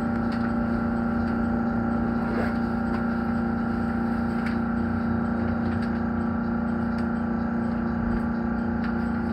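Cab noise of a JR Kyushu 813 series electric train: a steady low hum with a few higher whining tones, all held at one pitch, and a few faint clicks.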